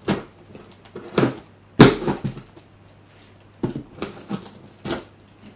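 Scissors cutting and prying at packing tape on a cardboard box: a string of sharp, irregular snips and crackles with short pauses between them.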